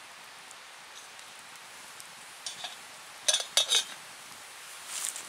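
Metal camp kettle clinking, lid and bail handle knocking against the pot as it is handled over a burning Swedish torch. There is one small clink about two and a half seconds in and a louder cluster of sharp clinks around three and a half seconds, over a faint steady hiss.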